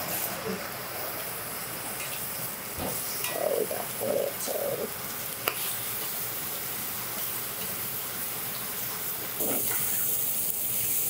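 Chicken drumsticks sizzling in hot fat in a stainless steel frying pan: a steady hiss that grows louder near the end. Metal tongs click against the pan once or twice as the pieces are turned.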